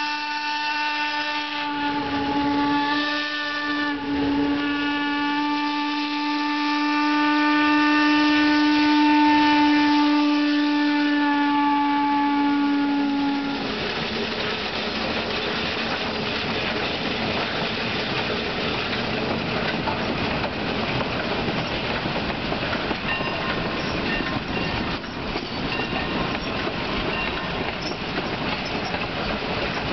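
Heisler geared steam locomotive sounding its steam whistle: a few short toots, then one long steady blast that cuts off about 13 seconds in. Then the locomotive and its train pass close by, a steady mechanical noise of running gear and wheels on the narrow-gauge rails.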